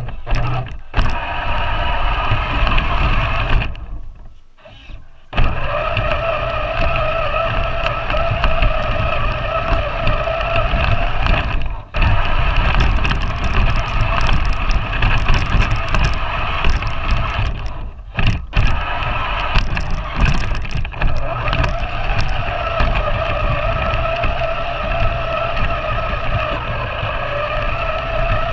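Large battery-powered RC 4x4 truck's motor and gears whining steadily under throttle, picked up by a camera riding on the truck, over a low rumble from the chassis. The sound drops out briefly about four seconds, twelve seconds and eighteen seconds in, as the throttle is let off.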